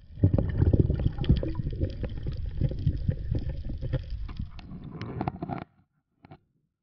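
Underwater water noise and handling knocks picked up by an action camera in its waterproof housing as a spearfisher moves: a dense low rumble with many small clicks, cutting off suddenly near the end.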